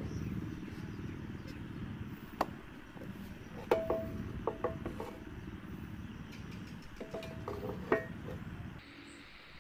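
Handling of a hollow PVC model truck cab: a series of sharp clicks and knocks as it is turned over in the hands and set on a metal workbench, several of them ringing briefly. A steady low rumble underneath stops near the end.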